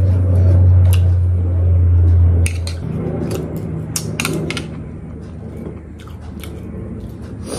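Eating sounds: biting and chewing with several sharp clicks, over a loud low hum that cuts off nearly three seconds in.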